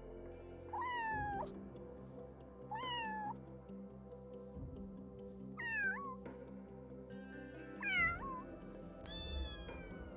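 A domestic cat meowing five times, each meow about half a second long and falling in pitch, spaced a second or two apart.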